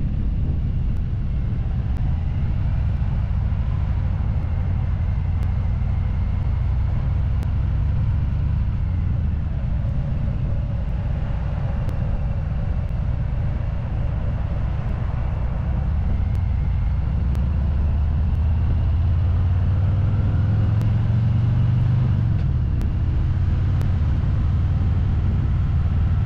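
Motorcycle engine running at road speed, heard from a camera mounted on the bike: a steady low rumble that swells a little about two-thirds of the way through.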